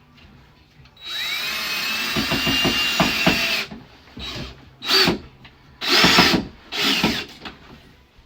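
Power drill running: one longer run of about two and a half seconds that spins up with a rising whine, then four short bursts.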